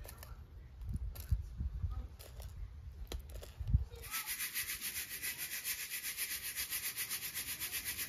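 Dry green lentils being sorted by hand on a ceramic plate: scattered small clicks and rustles as the lentils are pushed about. About four seconds in, this gives way to a fast, even, rhythmic rasping that stops abruptly near the end.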